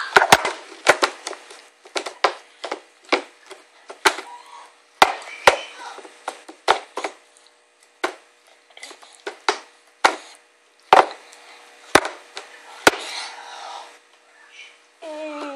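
A small glass bowl and a baby's hands knocking and slapping against a plastic high-chair tray: a long run of irregular, sharp knocks, some in quick pairs.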